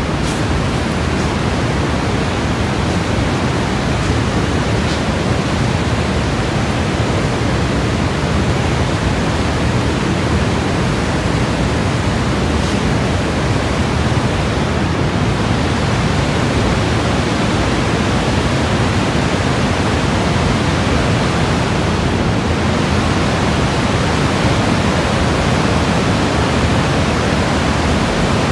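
The Horseshoe Falls at Niagara, heard close up: a steady, loud rush of falling water that never lets up.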